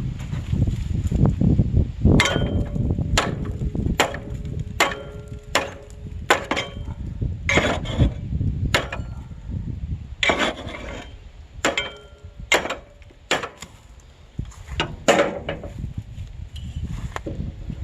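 A hatchet hacking at a rusty, stuck part: about fifteen sharp blows, roughly one a second, many with a short metallic ring. Low rumbling handling noise comes before the first blow.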